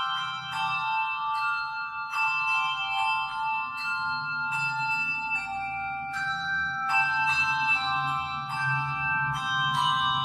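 Handbell choir playing a slow hymn arrangement: struck bell notes and chords ringing on and overlapping, a new strike every half second to a second.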